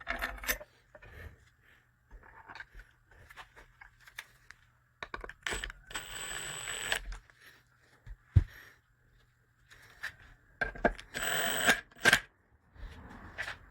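Workshop sounds of setting a threaded insert nut into wood: scattered metal clinks and knocks, one sharp knock about eight seconds in, and two short whirring bursts, the first with a steady high whine, about five and eleven seconds in.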